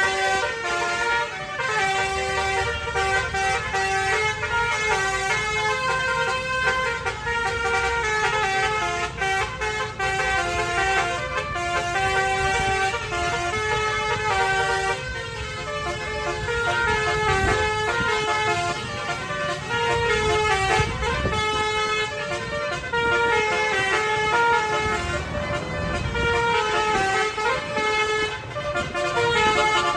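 Indonesian bus 'telolet' horns, Basuri multi-tone air horns, playing tunes of stepped notes one after another, over a low rumble.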